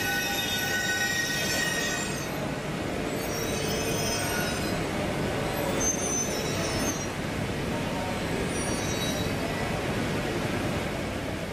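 E1 series Max double-decker Shinkansen rolling slowly out along the platform, its wheels squealing high and on and off over a steady running rumble.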